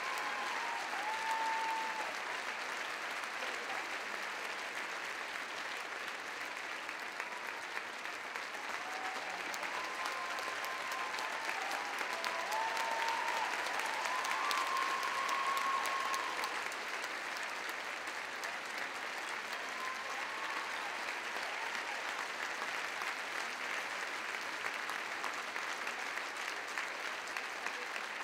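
Theatre audience applauding steadily at a curtain call, with a few short calls from the crowd rising over it; the applause swells a little around the middle.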